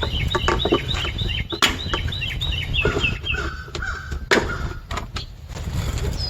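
A bird singing a fast run of short downslurred chirps, about five a second, shifting lower in pitch about three seconds in and stopping about a second later. Mixed in are sharp clicks and knocks of the plastic HVAC box being pried apart with a screwdriver.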